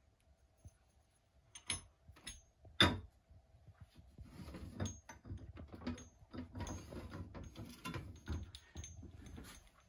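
Cast aluminium ingots and a small aluminium casting handled on a digital scale: a few knocks, one sharp clack about three seconds in, then a run of small metal clatters and scrapes as an ingot is moved.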